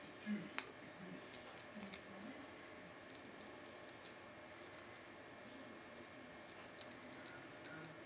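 Lock pick and tension tool working the pins of a cross-key (cruciform) padlock: small, irregular metal clicks and scrapes, the sharpest about half a second in.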